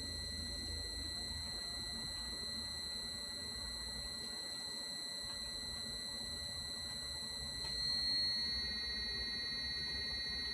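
Inverter-driven electric motor running with a steady high-pitched whine. About eight seconds in the whine rises slightly in pitch, a second tone joins and the level briefly swells as the timer steps the motor up from 500 to 1000 rpm.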